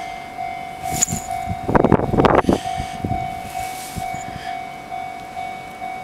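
Japanese level-crossing warning bell ringing, a steady repeated electronic tone about twice a second, with a loud burst of a train's wheels clattering over the crossing about two seconds in.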